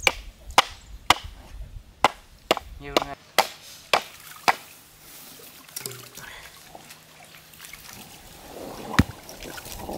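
Hand-turned stone quern grinding ragi: a series of sharp knocks, about two a second, as the upper stone is turned by its wooden handle. The knocks stop about halfway through, it goes quieter, and there is one more knock near the end.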